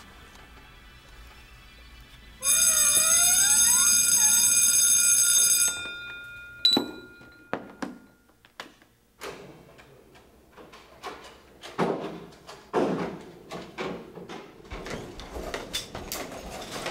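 A school's electronic class bell sounds a loud, steady tone for about three seconds. Sharp clicks and knocks follow, and near the end the bustle of a busy school hallway builds up.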